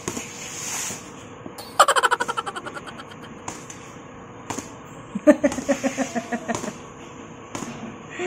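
A person laughing in two runs of quick pulses that fall in pitch, about two seconds in and again about five seconds in.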